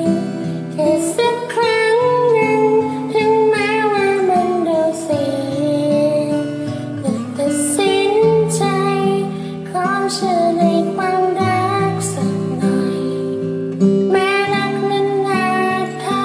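A woman singing a slow Thai song over acoustic guitar accompaniment.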